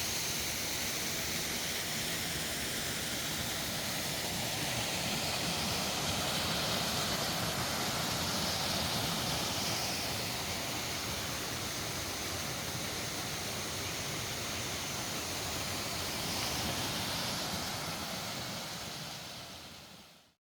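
Waterfall rushing: a steady roar of falling water that fades out near the end.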